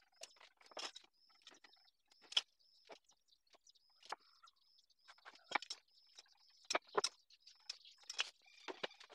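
Irregular light taps and clicks of a steel square and pencil being handled and set down on a hardwood board and workbench while it is marked out, the sharpest knocks about two and a half and seven seconds in. A faint high chirping repeats behind them.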